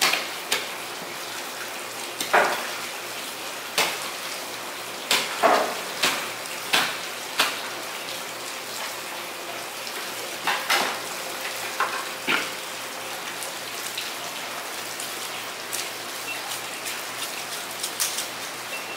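Fish-market ambience: a steady hiss of running water or rain, broken by about fifteen sharp knocks and metallic clatters at irregular intervals, most of them in the first two-thirds.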